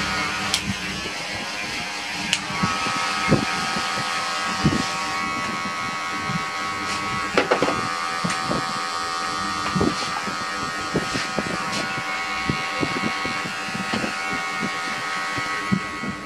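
Cordless electric hair clipper buzzing steadily as it cuts short hair, with light clicks and taps scattered through the hum.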